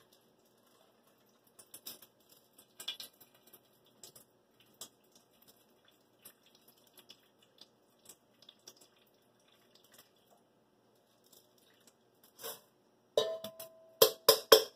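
Rinse water draining from a rice cooker's metal inner pot through a small strainer into a stainless steel bowl, heard as faint scattered drips and taps. Near the end the pot clanks several times, the first knock ringing briefly.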